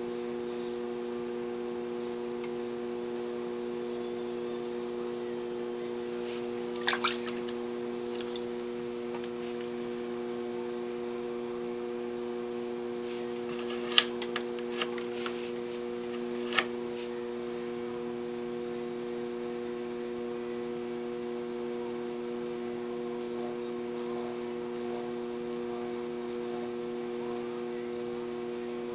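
Steady electric hum of a potter's wheel, with a few short wet clicks and drips as slip-covered hands work soft clay, mostly in the middle.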